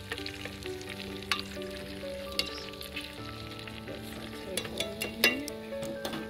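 Peppers and onion sizzling in a stainless steel pot while metal tongs turn them, with several sharp clicks of the tongs against the pot, the loudest about five seconds in.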